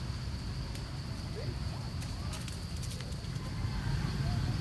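Outdoor forest background: a steady low rumble, with a steady high-pitched insect drone above it. A few faint clicks and short faint chirps are scattered through it.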